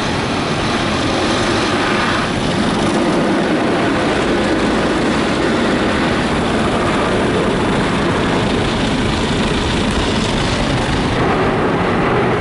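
Mark VII SoftWash XT rollover car wash running its hub-scrub stage, a steady rush of water spray hitting the car's body and windows together with the machine running, heard from inside the cabin.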